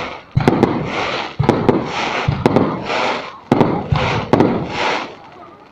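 Fireworks going off in quick succession, about one a second. Each has a sharp bang followed by a short crackling burst, and some come as double bangs.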